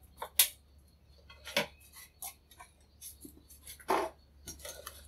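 Clinks and knocks of a stainless steel soup pot and the metal ladle in it as the pot is lifted off the stove and set down on a wooden table. A sharp clank about half a second in is the loudest; more knocks come around a second and a half and four seconds in, with lighter ticks between.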